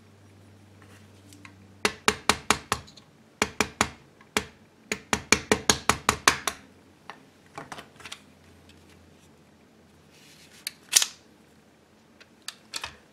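Rubber mallet tapping a steel pin punch to drive the cross pin out of a BRS-99 receiver: quick runs of sharp knocks, several strikes at a time, with the longest run of about eight taps in a row. A few lighter clicks follow later on.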